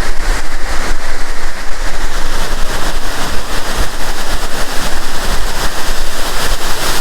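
Waterfall rushing close by: a loud, steady spray of falling water, with a low rumble underneath.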